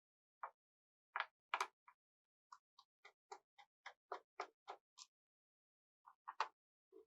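Faint, sharp clicks and ticks of a small screwdriver undoing the bottom-cover screws of a Lenovo Legion Y520 laptop. There are a few scattered clicks, a quicker run of about four a second in the middle, and a few more near the end.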